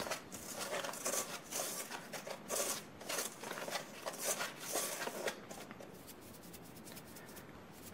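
Fingers stirring seasoned flour in a stainless steel bowl: soft, repeated scratchy rubbing strokes that grow fainter over the last couple of seconds.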